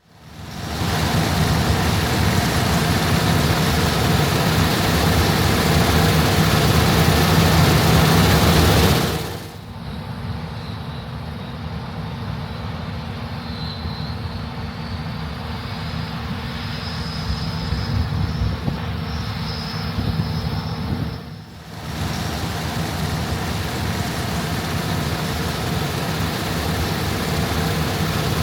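Diesel engines of wheat-harvest machinery running steadily with a deep hum. The sound drops abruptly to a quieter part about nine seconds in, where a faint high whine slowly rises, and it cuts back up about 22 seconds in.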